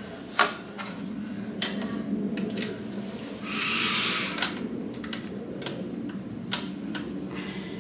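Scattered light clicks and knocks of parts and hand tools being handled during scooter reassembly, the sharpest about half a second in, with a short rasp a little before the middle.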